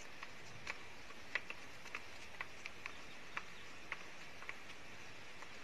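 Faint light clicks at irregular spacing, two or three a second, over a steady low hiss.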